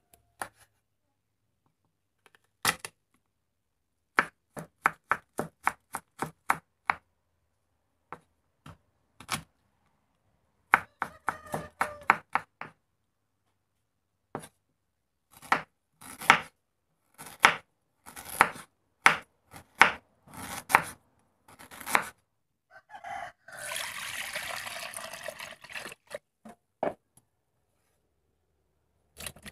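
Kitchen knife chopping on a wooden cutting board, first through smoked wild boar meat and then garlic, in runs of quick sharp strikes. A few seconds of steady noise come near the end, followed by one or two more strikes.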